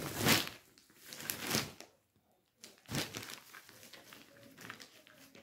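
Plastic packaging crinkling as it is handled and opened, in three short rustling bursts with fainter rustles after.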